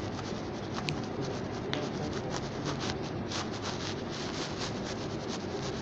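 Irregular scratchy rubbing and scraping strokes, like a pen on paper or something rubbing close to the microphone, with two sharp ticks about one and two seconds in.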